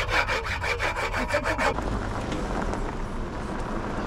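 Fast rhythmic scraping, about seven strokes a second, that stops a little under two seconds in, over a steady low engine hum that carries on alone.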